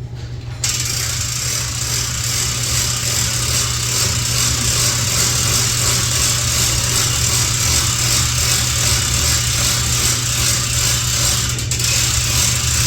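A steady motor-driven machine noise, a low hum with a broad hiss over it, that starts suddenly about half a second in.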